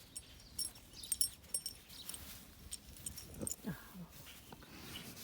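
A pet dog moving about close by, with scattered light clicks and rustles. About three and a half seconds in it gives a brief low, falling whine.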